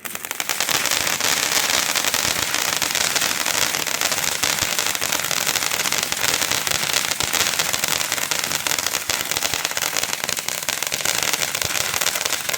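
World Class Fireworks M&W consumer fountain firework erupting: a loud steady hiss of spraying sparks that starts suddenly and builds over the first second, thick with rapid crackling throughout.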